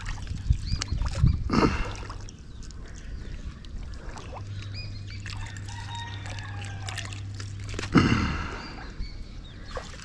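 Water splashing and trickling, with two louder splashes, about a second and a half in and again about eight seconds in.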